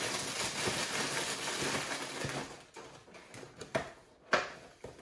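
Plastic liner bag of a cereal box crinkling as it is folded shut, for about the first two and a half seconds. Then a few light cardboard taps as the box top is closed.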